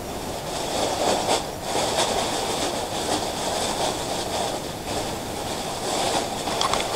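Thin plastic bag crinkling and rustling in irregular bursts as a cat pushes its head into it.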